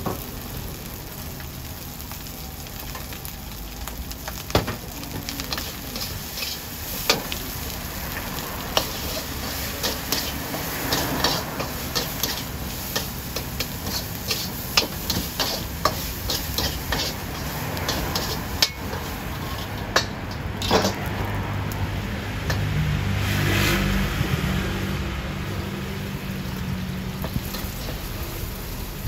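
Fried rice sizzling in a wok over a gas flame while a metal spatula scrapes and clanks against the pan in many sharp strikes. A low steady hum swells and fades in the last third.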